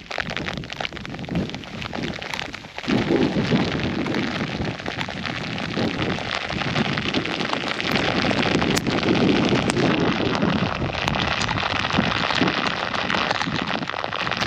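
Strong wind buffeting the microphone in a rain shower, with rain pattering; the gusts get louder about three seconds in and stay strong.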